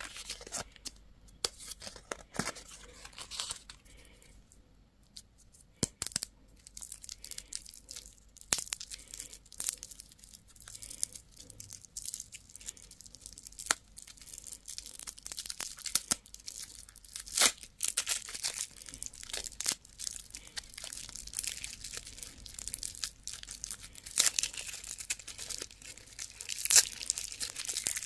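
Candy and toy packaging being torn open and crinkled by hand: irregular crackling and tearing with sharp snaps, getting busier and louder after the first few seconds.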